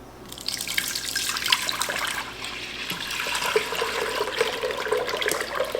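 Jersey milk being poured in a steady stream into an Instant Pot's inner pot, starting about half a second in and stopping near the end.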